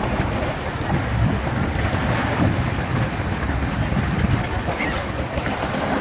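Wind blowing across the microphone over the wash of choppy sea water: a steady rush with a low rumble.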